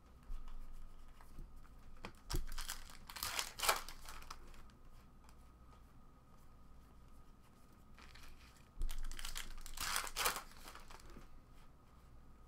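Panini Contenders Draft Picks trading cards being handled and flipped one by one, giving two stretches of sliding, rustling noise, about two seconds in and again near nine seconds, with soft clicks of card edges between.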